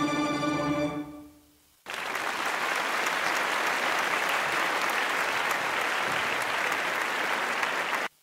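The last sustained chord of a track on a Roland SP-404 sampler fades out. About two seconds in, an applause sample starts abruptly, runs steadily and cuts off suddenly near the end.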